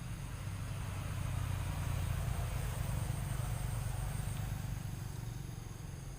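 Low rumble of a passing motor vehicle, swelling about a second and a half in and fading toward the end.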